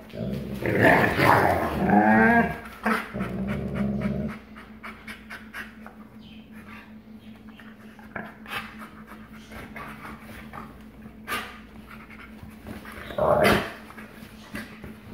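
Two wolfdogs growling in rough play: deep, rumbling growls for the first four seconds or so, then quieter fast panting, with a short loud growling snap near the end.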